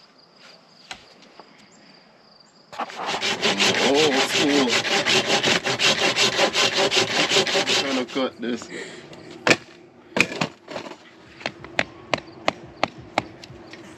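Hand saw cutting through a wooden board, fast back-and-forth strokes for about five seconds starting near the three-second mark. After a couple of sharp knocks comes a steady run of sharp taps, about two or three a second, as a hammer works at the board near the end.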